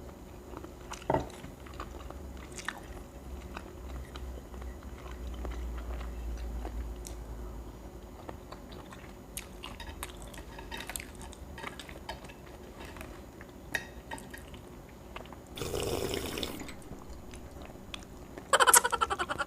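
Quiet eating: soft chewing with small mouth clicks and taps, a short rustling noise about 16 seconds in, and a louder rapid buzzing rattle just before the end.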